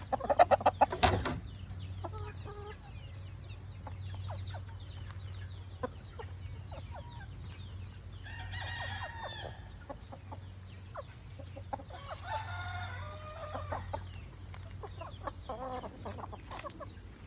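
Backyard chickens clucking and squawking, with a loud burst of rapid calls in the first second and scattered calls after that, over a steady low hum.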